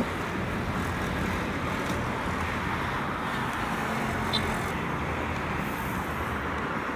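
Road traffic passing on a divided highway: a steady wash of car engines and tyre noise.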